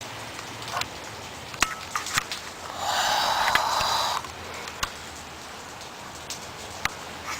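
Steady rain falling, with scattered sharp drips ticking close by. A louder, unidentified sound rises over the rain for about a second and a half in the middle.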